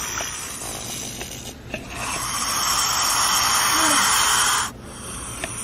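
Anaconda hissing: one long, loud hiss starting about two seconds in and cutting off abruptly near the end, over a fainter steady hiss.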